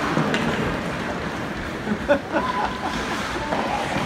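Hockey rink ambience during play: distant spectators' voices and calls over a steady hiss, with two sharp knocks, the louder about two seconds in.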